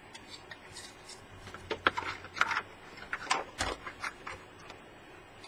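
Soft handling noise from a small plastic box being picked up and turned in the hands: a few scattered clicks and rubs, with one slightly firmer knock about three and a half seconds in.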